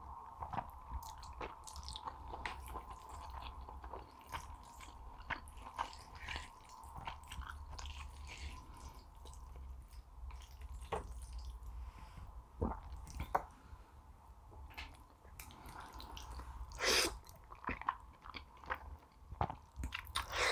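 Close-miked eating sounds: wet chewing with many small clicks and smacks, and one louder, longer mouth sound about 17 seconds in. A faint steady hum runs underneath.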